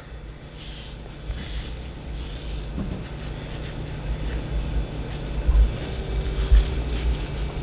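Steady low hum and rumble, with faint rustling and a few soft low bumps about two thirds of the way through.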